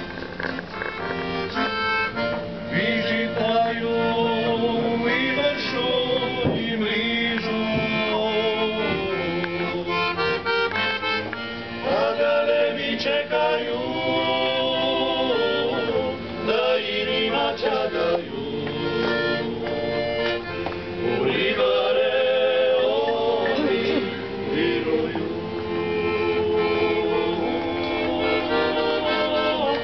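Male klapa vocal ensemble singing a Dalmatian song in close multi-part harmony, with long held chords.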